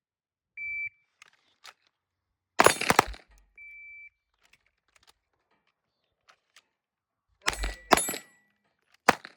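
A shot timer's short electronic beep starts the string, then a rapid volley of Glock pistol shots. A second, fainter beep follows, then another volley several seconds later and one last shot near the end.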